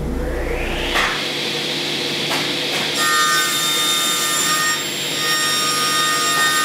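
Sliding-table panel saw running and cutting a wooden board: a whine that rises over about the first second, then a steady sawing noise with high whining tones from about three seconds in.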